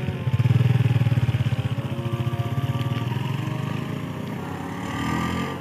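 Suzuki motorcycle engine pulling away and riding off, its exhaust note loudest at the start and slowly fading as it goes.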